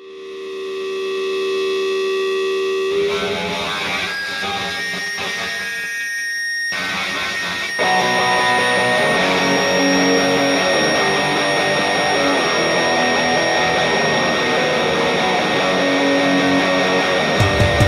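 Grunge/alternative rock intro on electric guitar through distortion and effects: it fades in on a held chord, moves into busier playing, and gets louder about eight seconds in. Just before the end a low, pounding beat starts as the band comes in.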